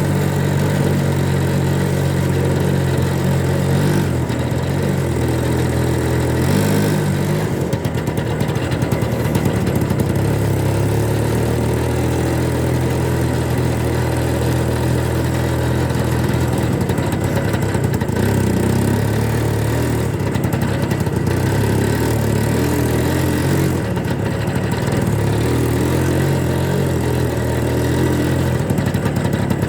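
Engine of a homemade Muravey cargo-scooter trike running steadily, its pitch shifting up and down a few times as the revs change.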